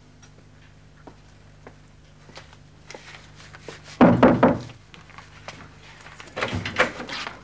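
A few faint footsteps, then a loud thump on a wooden door about four seconds in, and another cluster of knocks near the end.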